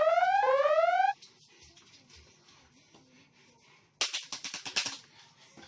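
An added cartoon sound effect: a rising electronic whoop repeated about once every three-quarters of a second, which cuts off about a second in. After a faint stretch comes a burst of rapid rattling clicks, about four seconds in, lasting about a second.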